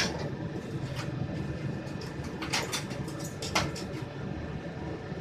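Metal ladle clanking a few times against a wok and steel bowls, over the steady noise of a gas wok burner in a commercial kitchen.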